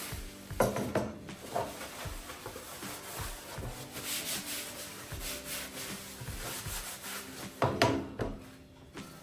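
Paper towel rubbing against clear plastic food storage containers as they are wiped dry, with knocks of the plastic containers being handled and set down about half a second in and again near the end.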